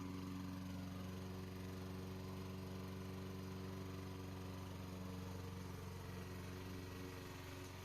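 Radio-controlled lawn mower's engine running at a steady speed, an even hum that drops a little in level near the end.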